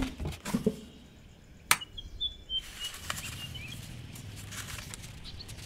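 Knocks and clicks of a small wooden box being handled on a wooden desk, with one sharp click about a second and a half in as its lid comes open. A few faint bird chirps follow.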